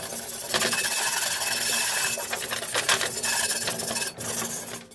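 Hand brush scrubbing rapidly back and forth over the ribbed cooking surface of a cast-iron skillet lid, a continuous rough scraping with a short break about four seconds in. It is brushing out the remains of the burnt-off factory grease from the porous cast iron during seasoning.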